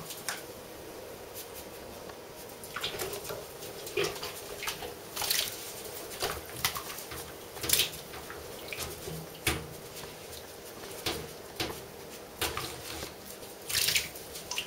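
A ferret scrambling in a nearly drained bathtub and mouthing the metal shower hose: about a dozen short scuffs and knocks at irregular intervals.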